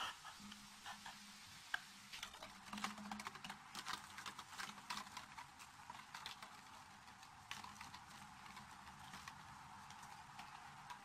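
Faint, irregular clicking and crackling of an empty plastic water bottle scraping and knocking over gravel as a kitten pushes it along.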